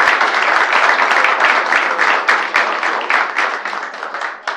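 Applause from a roomful of people, many hands clapping, tapering off toward the end.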